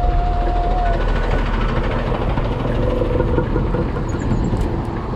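Steady motor-traffic noise heard from a bicycle in city streets: the engine rumble and road noise of a truck and cars close alongside. A thin, steady high tone runs until about a second in, then stops.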